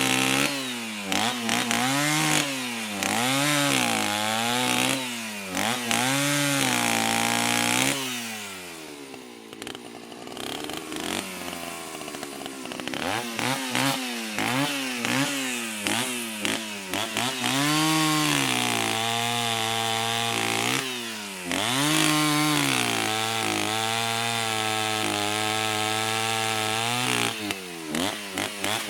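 Chainsaw engine being revved, the throttle opened and released about once a second so the pitch swings up and down. It drops to a lower, rougher speed for a few seconds, then revs up again and is held at steady high revs, with a few quick choppy throttle blips near the end.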